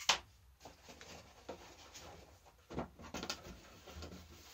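Candy packets being handled on a table: a sharp click right at the start, then a few fainter taps and rustles.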